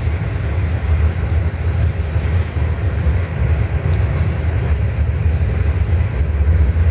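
A steady low rumble of background noise, even throughout, with no distinct events.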